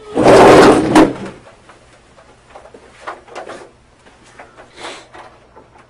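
A man's loud anguished cry or sob in the first second, ending in a sharp click. Then only faint clicks and rustles as the interview-room door is handled.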